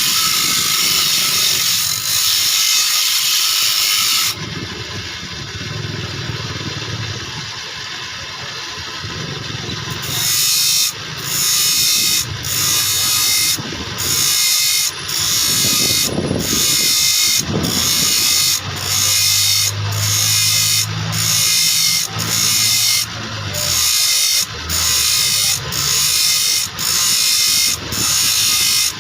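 Power grinder sharpening saw blade teeth: a steady grinding run, a quieter spell, then repeated grinding strokes about one every second, tooth after tooth.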